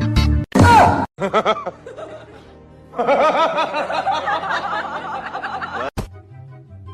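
A run of quick, snickering laughter over music, cut off sharply about six seconds in.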